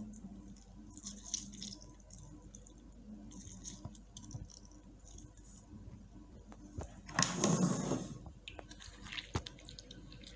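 Wet squelching of soaked tamarind pulp squeezed by hand in a stainless steel mesh strainer, with faint scattered crackles and one louder burst of noise lasting under a second about seven seconds in.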